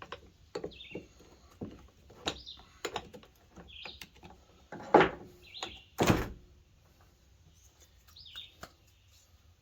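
String trimmer head being taken apart by hand: scattered clicks and knocks of its parts, with two louder thumps about five and six seconds in. Short bird chirps now and then in the background.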